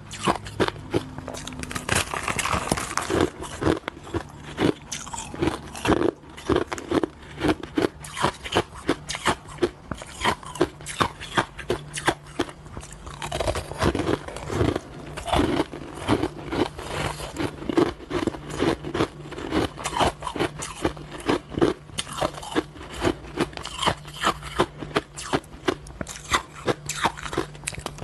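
Crushed and shaved ice being bitten and chewed: quick, irregular crunches, several a second, running on without pause.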